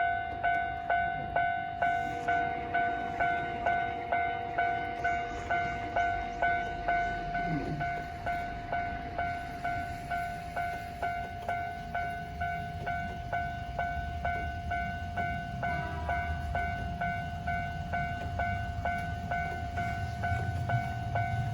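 Japanese level-crossing warning bell ringing steadily at about two dings a second. From about two-thirds of the way in, the low rumble of a tram passing the crossing builds, loudest near the end.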